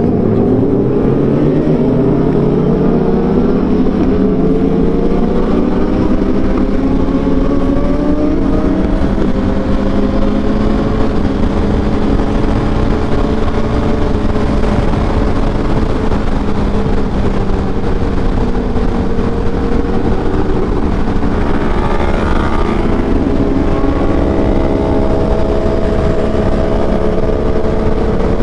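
Honda CBR1000RR SP's inline-four engine pulling hard under riding load. Its pitch rises over the first couple of seconds, then it holds a steady high cruise over a constant roar.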